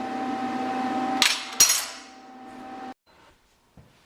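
Two sharp metallic clanks about a second and a half apart, like a finished steel welding clamp being set down on a steel welding table. They sit over a steady tone that cuts off suddenly about three seconds in.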